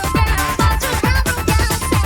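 Electronic dance music with a steady kick drum beat, played by a DJ through a sound system.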